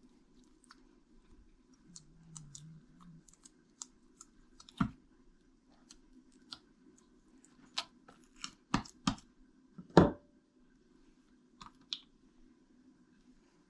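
Kitchen handling sounds while oil roti dough is shaped: scattered light clicks and taps, with a few sharper knocks, the loudest about ten seconds in, over a faint steady hum.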